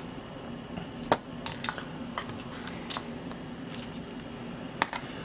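Chopsticks clicking and tapping against plastic takeout trays while slices of braised pork trotter are picked up and folded into a leaf wrap. Scattered sharp clicks, the loudest about a second in.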